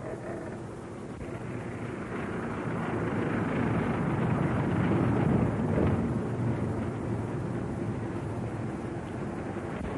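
A truck's engine and road rumble growing louder as it approaches, loudest about five seconds in, then running on steadily at a lower level.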